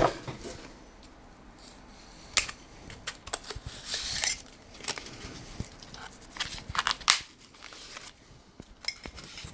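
A knife cutting and scraping at the tape and cardboard of a small box, in short scratchy strokes with clicks and crinkles. A sharp knock at the very start.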